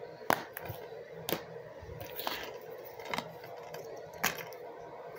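Plastic DVD cases clicking and knocking as they are handled and set down: about five sharp clicks roughly a second apart, over a faint steady hum.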